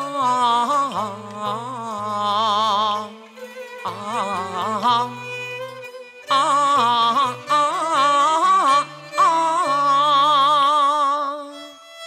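Cantonese opera accompaniment band playing an instrumental interlude between sung lines: a melody led by bowed strings with wide vibrato over a low bass line, in several phrases with short breaks.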